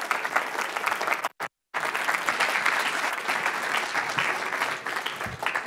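Audience applauding, a dense patter of many hands clapping, cut by a brief dropout about one and a half seconds in.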